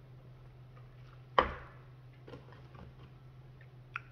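A paper drink cup set down on a table with one sharp knock about a second and a half in, followed by a few faint clicks of handling a plastic sauce cup and food packaging. A steady low hum runs underneath.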